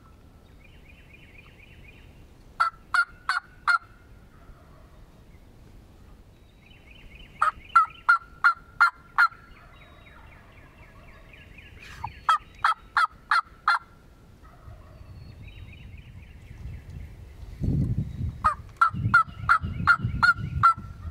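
Wild turkey yelping: four series of sharp, evenly spaced yelps, four to eight notes each, with fainter gobbles rattling in between. A low rumbling noise builds near the end.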